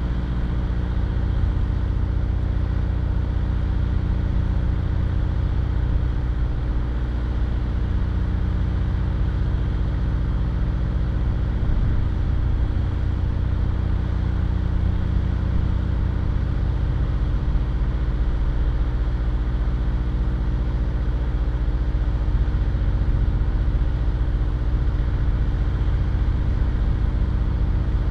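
Car engine idling steadily: an even, low hum that holds one pitch and does not change.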